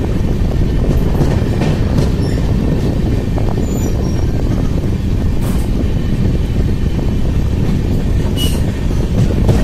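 Train running at speed, heard from on board: a steady, loud rumble of wheels on the rails. Brief high wheel squeals sound twice, about four seconds in and near the end.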